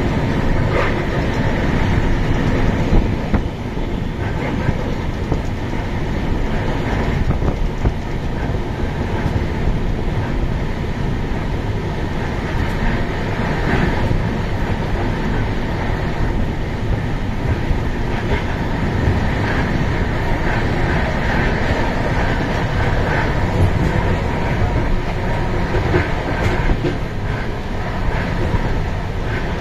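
Passenger train running steadily along the track: a continuous rumble of wheels on rails with scattered clicks over the rail joints, heard from the open coach doorway.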